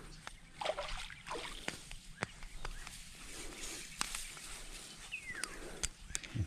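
Light water splashing and scattered small clicks, with one short falling whistle-like call about five seconds in.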